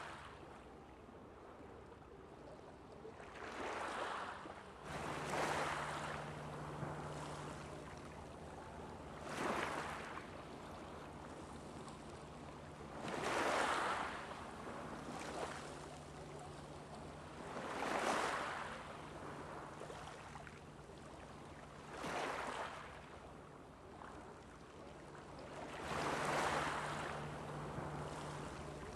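Small waves washing onto a beach, one swell of surf every few seconds, with a faint steady low hum underneath.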